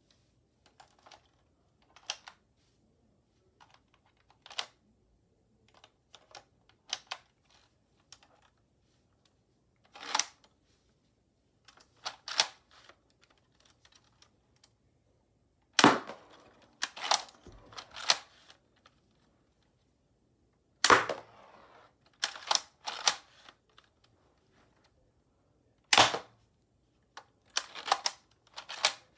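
Plastic clicks and snaps from a LEGO AUG replica gun's mechanism being worked by hand. Light scattered clicks come first, then louder sharp snaps from about halfway on.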